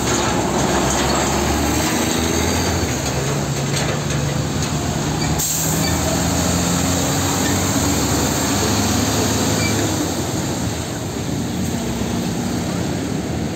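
Diesel engine of a MAN tractor unit running as the truck pulls slowly past close by, its engine note shifting in pitch. There is a single clunk about five seconds in.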